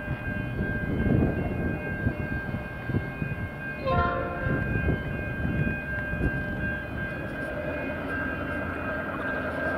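Air horns on the lead units of a five-locomotive S, T and P class EMD diesel consist, held in a long steady multi-note chord; about four seconds in the horn briefly cuts out and sounds again. The locomotives' diesel engines rumble underneath.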